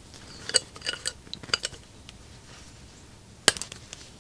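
Small metal hand tools clinking against metal parts as an Allen key and an adjustable spanner are worked on a pressure-washer unloader piston. There are several light clinks in the first two seconds and one sharp, loud clink about three and a half seconds in.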